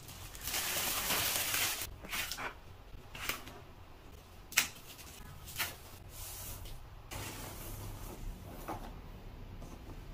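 Clear plastic wrapping rustling and crinkling as a new handbag is unwrapped, loudest about half a second to two seconds in, then in shorter rustles with a single sharp click near the middle.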